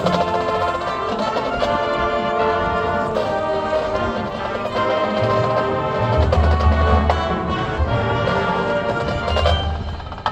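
High school marching band playing: brass sustaining chords over low drum hits, with a heavy low pulse about six seconds in and again near the end.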